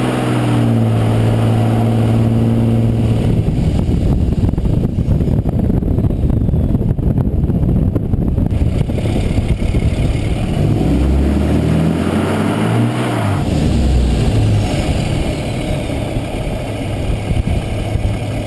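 V8 pickup truck doing a short burnout: the engine runs at a steady high rev for the first few seconds, then gives way to a rough rushing noise of spinning tyres, with the engine note rising and falling again around the middle.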